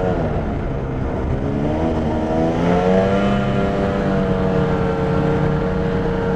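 2021 Arctic Cat Riot snowmobile's two-stroke engine running at low trail speed through its ADAPT primary clutch. The revs sag about half a second in, climb again from about two to three seconds in, then hold steady.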